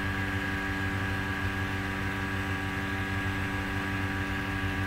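Steady background hum holding several fixed pitches, unchanging throughout.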